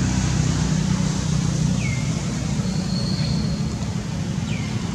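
Steady low rumble of a running engine, as from nearby traffic. Two short high chirps fall in pitch, about two and a half seconds apart, and a brief thin high tone sounds in the middle.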